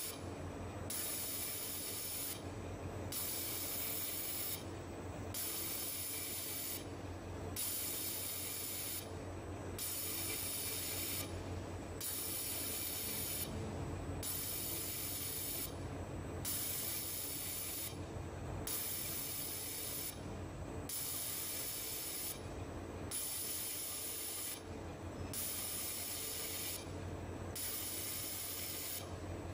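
Automatic fiber laser welder making ring welds in stainless steel pillow plate: a hissing burst of about a second and a half for each weld, repeating about every two seconds as the head steps to the next spot. A steady low machine hum runs underneath.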